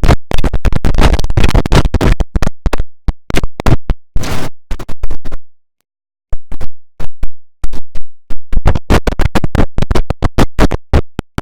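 The IBM OS/2 Warp 3 shutdown sound chopped and stuttered by audio editing into rapid short snippets with hard cuts, like record scratching. The sound drops out completely for under a second about halfway through.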